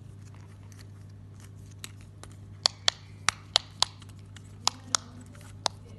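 Fidget toy clicking: eight sharp clicks in an uneven run starting about halfway in, over a steady low hum.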